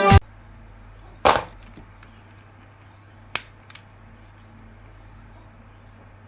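A short burst of music cuts off, then toy handling noises: one loud, brief rustle or knock about a second in, and a sharp click a couple of seconds later, over a faint steady electrical hum.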